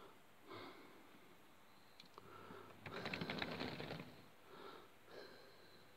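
Model railway wagons rolling quietly along the track, with a burst of rapid clicking about three seconds in as the wheels run over rail joints. Soft breathy puffs come and go every second or so.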